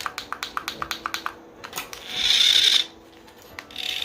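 Rapid plastic clicking and rattling as a small toy remote-control car is handled, followed about two seconds in by a short, loud hissing burst.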